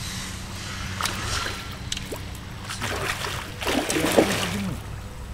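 Water splashing in irregular bursts, typical of a big hooked carp thrashing at the surface during the fight, over a steady low hum. A brief voice cuts in about four seconds in.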